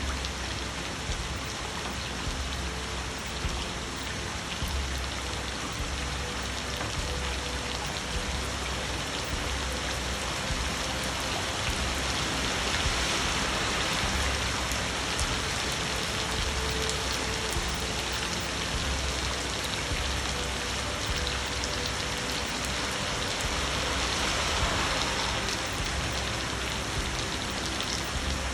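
Steady rainfall: a dense hiss of falling rain with individual drops ticking through it. It grows a little heavier about halfway through and again near the end.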